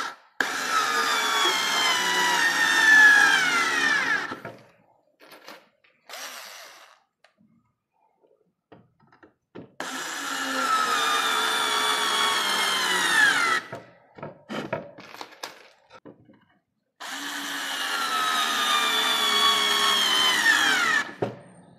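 Daewoo 3.6 V cordless lithium screwdriver driving screws into semi-hard wood in three runs of about four seconds each. Its motor whine drops in pitch toward the end of each run as the screw drives home. Short clicks and knocks come between the runs.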